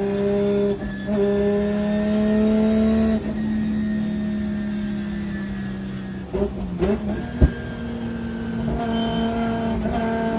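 Drift car engines held at steady high revs through a tandem drift, heard from inside the chase car's cabin. A little past halfway the engine note dips and recovers, with a sharp knock just after.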